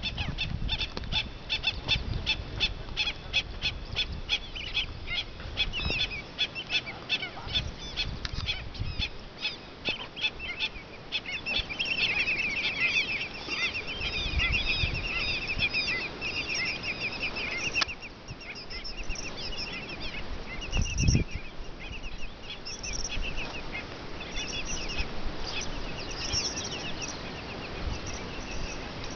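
A chorus of wetland birds calling: a fast run of short repeated calls, about three a second, then a denser chattering from about twelve seconds in that thins to scattered calls. Occasional low rumbles sound under the calls.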